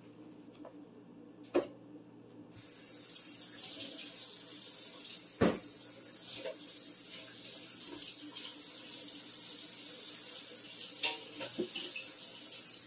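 Kitchen tap turned on about two and a half seconds in, water running steadily into the sink, with a few knocks and clunks of things being handled in it, the loudest about five seconds in.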